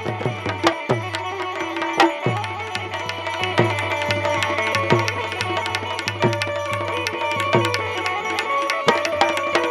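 Instrumental music: a hand drum beating a steady, quick rhythm under sustained melodic notes.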